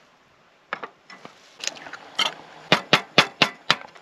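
Fork beating eggs in an enamel bowl: a few scattered clicks, then, past halfway, a quick run of about five clinks of the fork against the bowl, roughly four a second.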